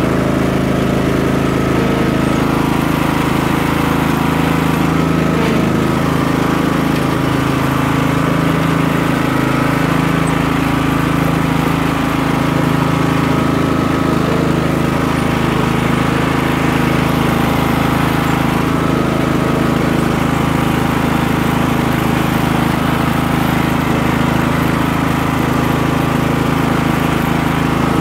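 Craftsman LT1000 lawn tractor's engine running steadily as the tractor is driven along.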